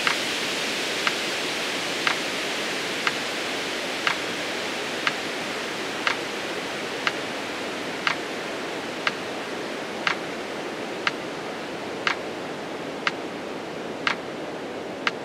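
Metronome ticking steadily once a second, every other tick louder, over a steady hiss; the ticks count out the slow exhale of a breathing exercise.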